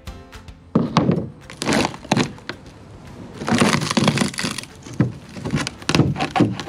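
Rotten plywood stringers in a fiberglass boat hull being pried and broken apart with a hand tool. The wood and fiberglass crack, crunch and splinter in a few loud bursts, starting about a second in.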